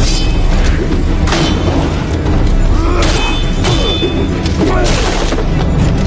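Sword-fight sound effects: several heavy blows landing on a wooden shield and steel, one about three seconds in ringing like struck metal, with the rush of a flaming sword over dramatic background music.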